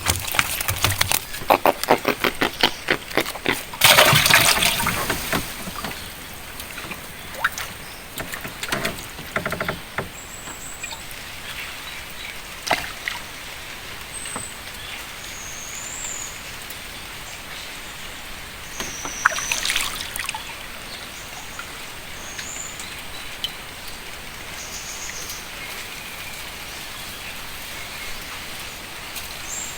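River water sloshing and trickling against a small boat, with a run of rapid clicks and splashes in the first few seconds. Then a steady hiss, with short high bird chirps now and then.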